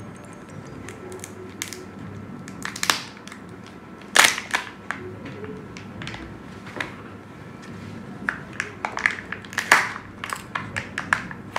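Plastic Kinder Joy egg and its toy capsule being pulled and snapped open by hand: irregular plastic clicks and crinkling, with sharp snaps about four seconds in and near ten seconds.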